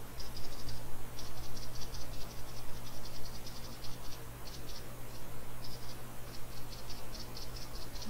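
Rapid, high-pitched chirping in short runs of evenly spaced pulses, insect-like, over a faint steady low hum.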